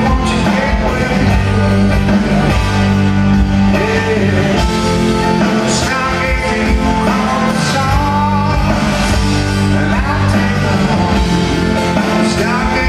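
A live rock band plays a song: electric guitars, bass and drums, with a singer's voice gliding over the band, heard from the audience in a large hall.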